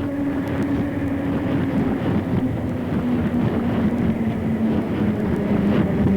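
A vehicle running, with a steady hum that slowly drops in pitch while the sound grows gradually louder.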